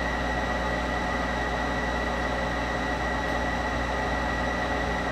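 Monarch 10EE lathe running steadily: an even mechanical hum with a thin, high-pitched whine held over it.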